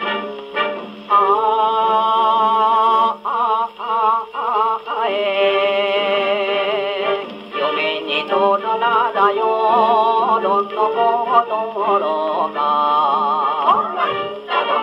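A Columbia G-241 portable acoustic gramophone playing a 1950 Japanese 78 rpm record: a sung vocal with wide vibrato on long held notes over accompaniment. It sounds thin and narrow, with no deep bass or high treble.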